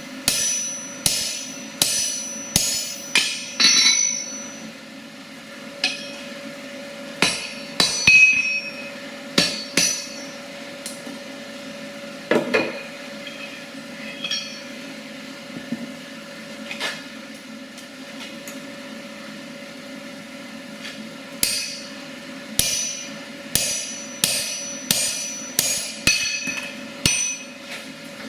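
Blacksmith's hammer forging steel on an anvil: runs of sharp, ringing blows about two a second, thinning to a few scattered strikes in the middle before the hammering picks up again. A steady hum runs underneath.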